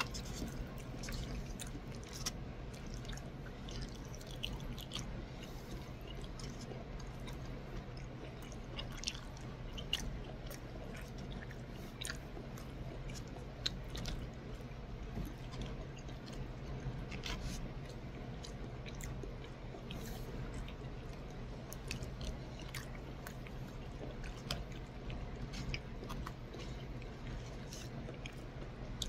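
Close-up chewing of soft macaroni and cheese, with scattered small wet clicks and smacks of the mouth and plastic fork, over a steady low hum.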